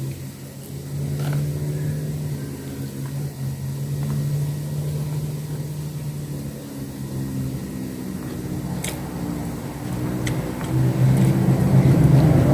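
A steady low motor hum that grows louder near the end, with a few sharp clicks over it.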